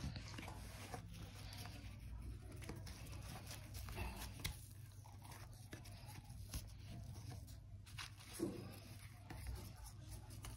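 Quiet eating sounds: a paratha torn apart by hand and chewed, soft scattered clicks and rustles over a faint low hum.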